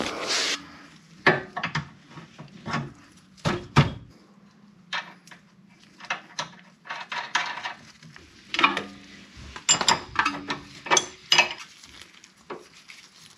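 Irregular metallic clinks and clicks of a combination wrench and hand-worked steering parts: the wrench knocking on the tie rod end and its nut at the steering knuckle. A brief rustling scrape comes right at the start.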